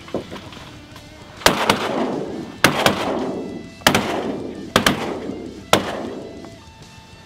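A volley of shotgun fire at ducks overhead: about eight sharp shots over some four seconds, several in quick pairs, each followed by a long echoing tail.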